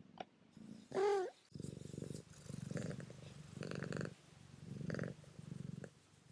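Domestic cat purring close up, the purr swelling and fading in a steady rhythm about once a second as it breathes in and out. It is preceded about a second in by a short wavering call.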